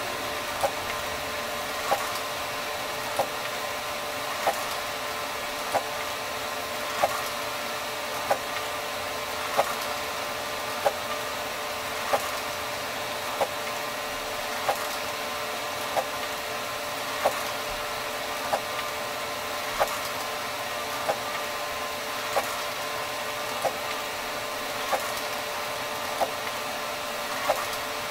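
Encad NovaJet 750 wide-format inkjet printer printing: a steady mechanical whir with a sharp click about every second and a quarter.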